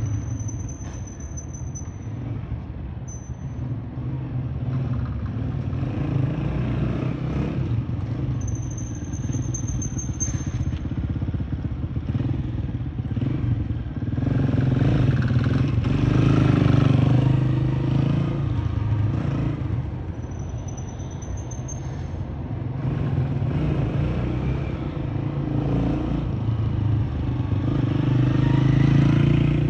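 Small motorcycle engine running at low speed, its note rising and falling with the throttle and growing louder about halfway through and again near the end.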